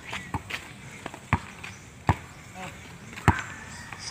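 Basketball dribbled on a hard-packed dirt court: a handful of sharp thuds, most about a second apart, the loudest two near the middle and toward the end.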